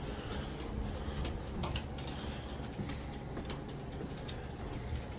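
Footsteps of a person and a dog on wooden porch boards: irregular light clicks and knocks over a steady low rumble.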